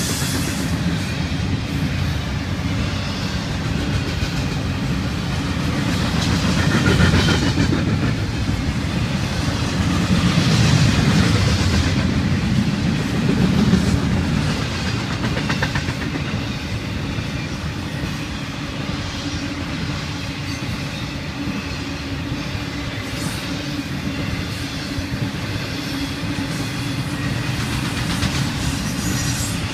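Florida East Coast Railway intermodal freight train's cars rolling past, their steel wheels running steadily on the rails. The sound swells louder twice in the first half.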